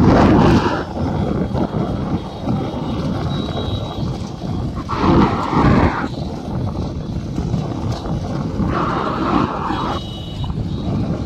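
Motorcycle engines running close by as riders follow racing bullock carts over a dirt track. The noise gets louder a few times, near the start, about five seconds in, and again near the end.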